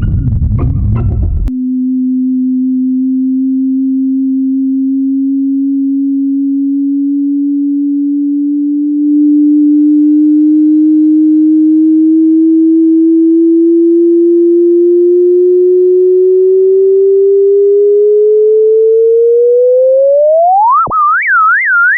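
Sonified gravitational-wave chirp from a merging pair of compact objects: a pure electronic tone that climbs slowly in pitch for nearly twenty seconds, then sweeps sharply upward near the end and breaks into a fast wavering high tone. A brief noisy rumble from the previous clip cuts off about a second and a half in.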